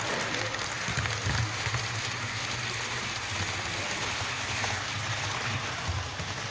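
Model train running past on the layout: a steady electric-motor hum with a fast patter of wheels clicking over the rail joints. It eases off slightly near the end as the train moves away.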